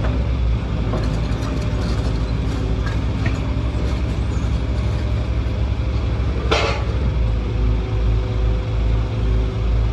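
Heavy excavator engine running steadily with a low rumble, with a few faint clicks and one short, loud hiss about six and a half seconds in.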